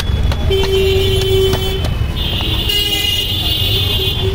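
Road traffic rumbling with vehicle horns: one steady low horn note sounds for about a second, then a higher, shriller horn holds from about two seconds in to the end. Scattered sharp clicks run through it.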